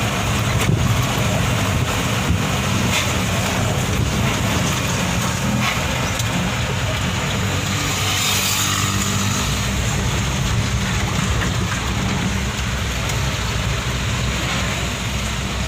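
Heavy diesel engine running steadily, with a few sharp knocks in the first few seconds and a steadier low drone from about nine seconds on.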